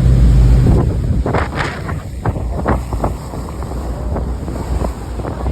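Wind buffeting the microphone, loudest in the first second, with a run of sharp knocks and clicks through the middle of the stretch.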